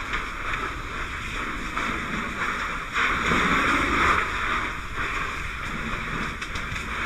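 Fire hose nozzle spraying water: a steady rushing hiss that grows louder for about a second and a half from three seconds in.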